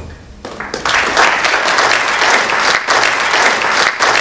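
Audience applauding. It starts with a few scattered claps about half a second in and swells within a second into full, steady applause.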